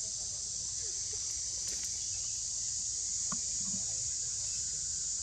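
Steady high-pitched chorus of insects in tropical forest, even throughout, with a couple of faint brief sounds a little past the middle.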